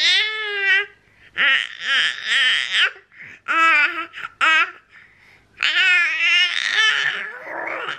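An infant laughing and squealing in several high-pitched bursts with short pauses between them.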